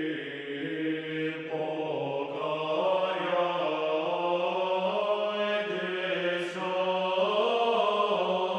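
Background music of slow, sustained wordless voices, holding long notes that shift in pitch every second or two.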